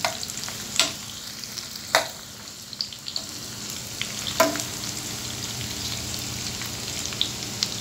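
Sliced onions and green chillies sizzling in hot oil in a frying pan while a plastic spatula stirs them, knocking sharply against the pan three times.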